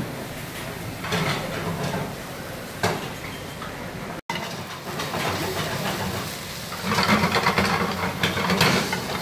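Busy cooking-station noise: a steady rumble with scattered clattering, louder near the end. It drops out for an instant about four seconds in.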